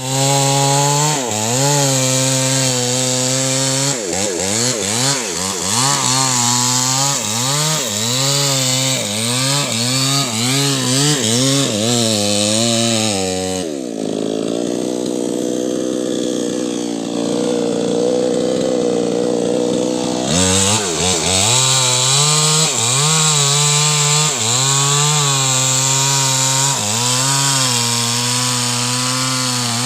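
New West 628 two-stroke chainsaw with a 24-inch bar running hard, its engine note rising and falling again and again. About halfway through, for some six seconds, the note drops lower and duller before climbing back.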